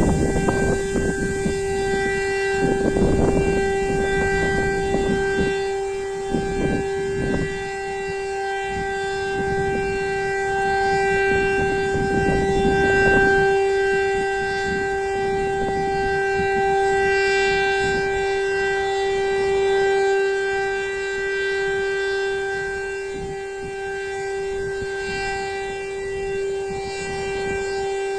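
Civil-defence warning siren sounding a steady, unbroken tone, the continuous test signal of the Czech monthly siren test. Gusty low rumbling noise sits under it for about the first half.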